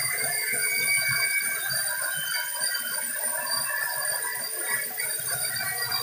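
Sawmill band saw cutting a teak log as it is fed along on the log carriage: a steady high-pitched whine over continuous mechanical noise.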